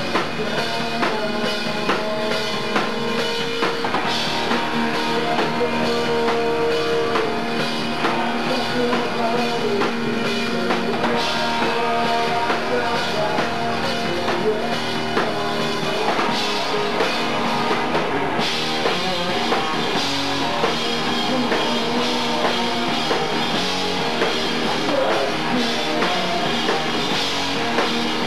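Live rock band playing a song: electric guitar, bass guitar and drum kit together, loud and steady throughout.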